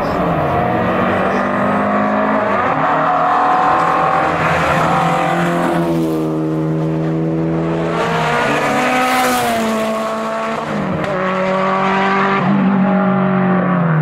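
Historic competition cars driven hard up a hill-climb road one after another, engines revving, dropping and climbing again through gear changes as they pass. A red Lancia Delta is among them.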